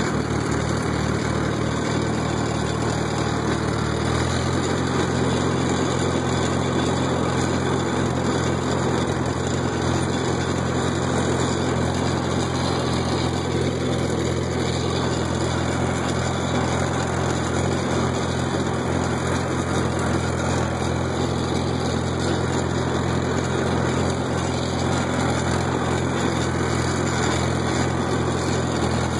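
Farmall H tractor's four-cylinder engine running steadily while the tractor drives, its note changing slightly about four seconds in.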